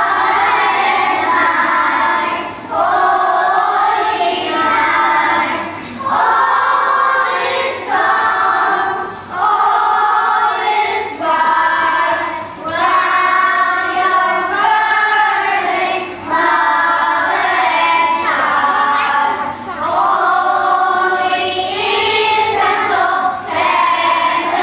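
A group of children singing together, in sung phrases of a few seconds each with short breaks for breath between.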